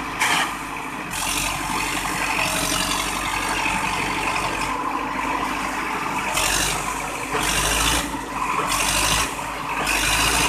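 Sonalika DI 750 tractor's diesel engine running steadily in gear while the tractor is driven out of a mud pit, its rear tyre churning mud and grinding on a wooden block wedged under it for grip. From about six seconds in, noisy rushing surges of about a second each come over the engine.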